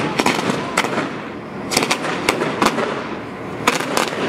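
Fireworks going off: sharp bangs and cracks, some in quick pairs, about every second, over a steady crackling hiss.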